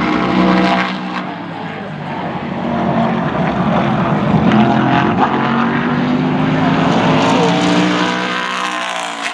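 Whelen Modified race car's V8 engine running at low speed, its pitch rising and falling with the throttle.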